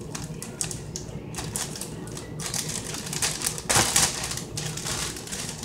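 Hands handling food and plastic packaging: a run of quick crinkles and small clicks, with a louder rustle about four seconds in.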